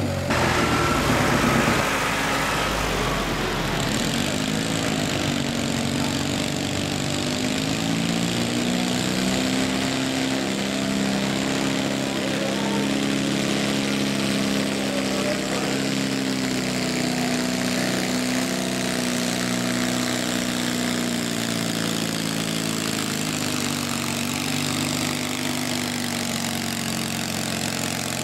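Small engine of a modified riding lawn mower running hard and continuously while pulling a weight sled. It is loudest in the first couple of seconds, holds a steady, slightly wavering pitch, and eases a little near the end.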